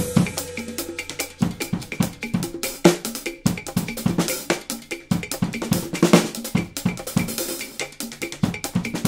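Acoustic drum kit played with wooden sticks: a quick, steady stream of short, dry strokes, mostly on a snare drum damped by a cloth lying on its head, with sharp, clicky hits among them.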